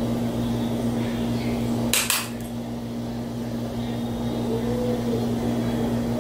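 Steady low hum over room noise, with a short sharp double click about two seconds in.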